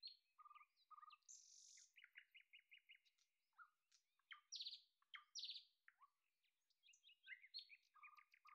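Faint birdsong: scattered chirps and short, quick trills of repeated notes, one bird call after another.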